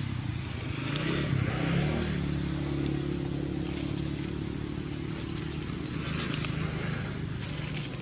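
A motor vehicle engine running steadily, its pitch bending up and down between one and two seconds in.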